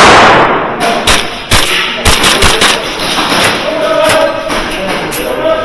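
A loud blast right at the start that fades over about half a second, then a string of irregular sharp cracks of airsoft gunfire.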